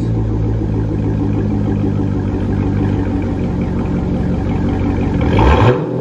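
2008 Chevrolet Corvette V8 running through long-tube headers, high-flow cats and an X-pipe with turndowns and no mufflers, idling steadily, then one short rev near the end that rises and drops off quickly.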